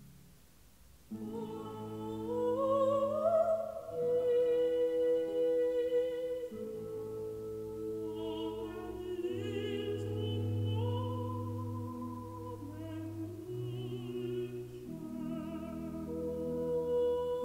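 Slow classical music in an operatic style: a melody of long held notes with vibrato over sustained low notes. It starts after a brief quiet pause about a second in.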